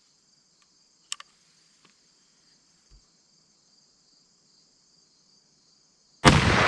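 Crickets chirring steadily, with a sharp click about a second in. Near the end, a single loud shot from a .50 calibre CVA muzzleloader, its report fading slowly.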